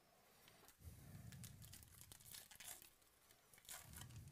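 Faint crinkling and tearing of a 2018 Topps Archives baseball card pack's wrapper as it is pulled open by hand, in two stretches: from about a second in, and again near the end.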